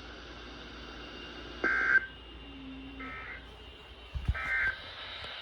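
NOAA Weather Radio Emergency Alert System end-of-message data bursts: three short buzzy two-tone chirps about a second apart, marking the end of the severe thunderstorm warning.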